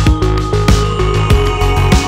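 Electronic background music with a heavy bass line and a steady kick drum, about one and a half beats a second.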